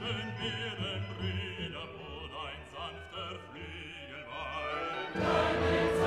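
Background classical-style music: a wavering operatic melody line with vibrato over sustained low orchestral notes, swelling into a louder, fuller choral passage about five seconds in.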